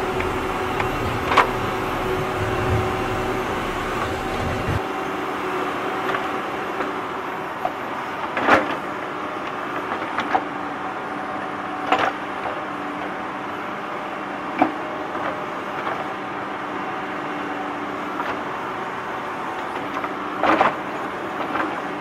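Steady street background noise with a low traffic rumble that fades out about five seconds in, broken by a few sharp clacks of plastic toy trucks being handled and set down.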